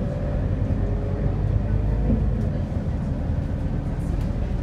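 Scania K230UB single-deck bus heard from inside the passenger cabin while under way: a steady low engine drone with a faint whine and road noise.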